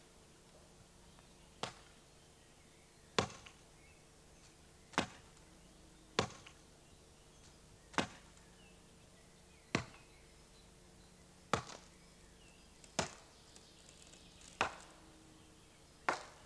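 Axe chopping into a tree trunk: about ten sharp, evenly paced strokes, one every second and a half or so.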